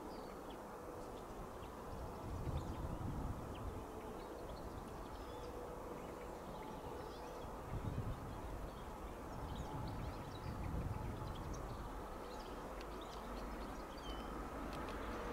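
Small birds chirping sporadically over a low outdoor rumble that swells a few times.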